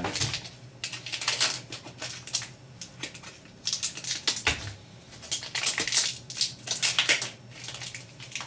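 The thin plastic bags around Epson ink cartridges are being handled and opened, crinkling and crackling in several separate bursts.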